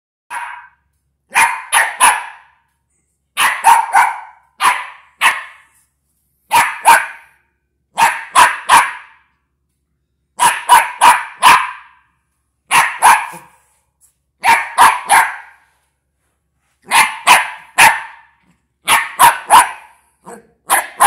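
West Highland white terrier puppy barking in quick runs of two to four sharp barks, with short silent pauses between runs.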